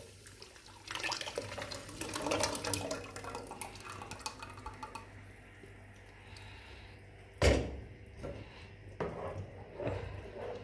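Tomato passata poured into a saucepan of onion frying in oil, splashing and crackling for about four seconds. A single loud knock comes about seven and a half seconds in, then a wooden spoon stirs the sauce in the pan.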